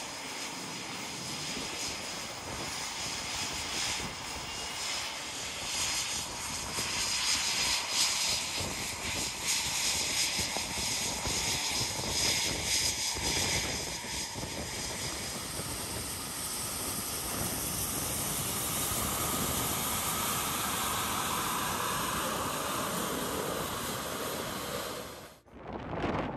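A fixed-wing aircraft's engine noise as it flies past, a loud rushing hiss that swells and eases, then cuts off suddenly near the end.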